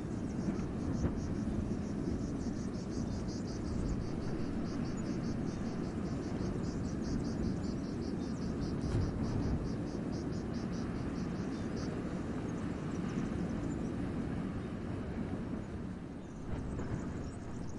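Wind rushing steadily through a forest, a low rumbling noise. Over it, a run of short high chirps repeats about four times a second and stops about twelve seconds in.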